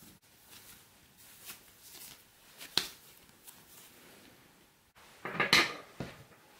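Shortbread dough being kneaded and pressed by hand in a ceramic bowl: soft squashing and light taps, with one sharp click about three seconds in. Near the end, a short, louder clatter of kitchenware being handled.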